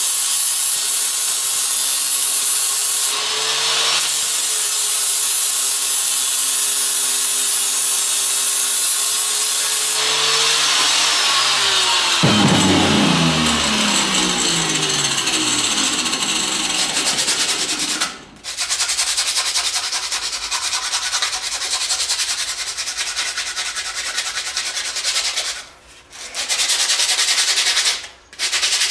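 A handheld power tool runs steadily against a wooden axe handle, shaping it to fit the head, then is switched off about ten seconds in and winds down with a falling pitch. After that comes hand sanding along the wooden handle: a steady rubbing, broken by short pauses between strokes near the end.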